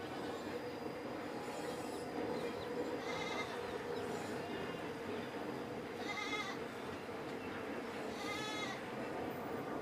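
An animal calling three times, about three seconds apart, each a short wavering cry, over a steady background hum.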